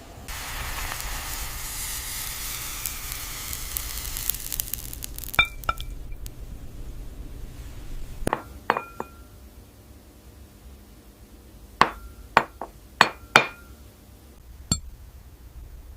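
AI-generated glass ASMR sound: a hissing, crackling noise for the first five seconds or so, then a series of sharp glass clinks, each with a brief bright ring, most of them in the last half.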